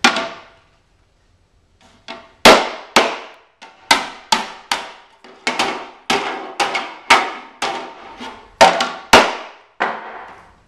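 A hammer striking an upside-down black plastic food display tray over and over in a durability test of an unbreakable tray. One sharp blow, a pause of about two seconds, then some fifteen hard knocks at roughly two a second, each with a short ringing tail.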